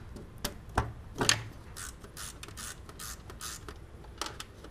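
Socket ratchet clicking in short bursts on each backswing, about three a second, as the 13 mm bolts of the exhaust manifold heat shield are loosened. A few sharp knocks of metal on metal come first.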